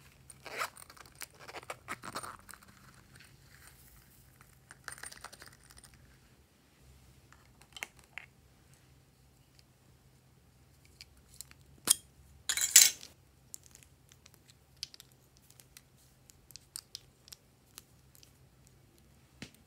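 Close-up handling of small plastic objects: a zipper on a small plastic pouch rasped open in the first couple of seconds, then plastic lip balm tubes clicking and knocking together. The loudest is a brief clatter about twelve and a half seconds in.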